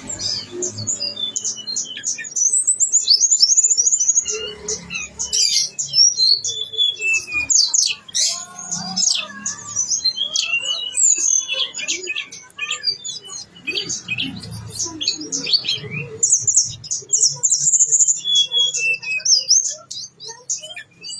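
Tledekan gunung songbird singing non-stop: a rapid, varied run of high chirps, trills and sweeping notes, full of mimicked phrases of other birds.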